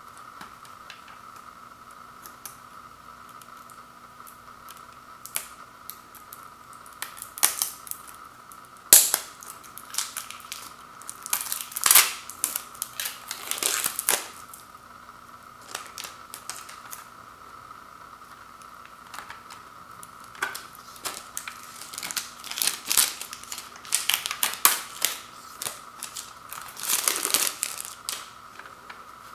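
Cellophane shrink wrap being torn and peeled off a plastic CD jewel case: bursts of sharp crackling and crinkling, with clicks from the hard plastic case being handled. A steady faint hum runs underneath.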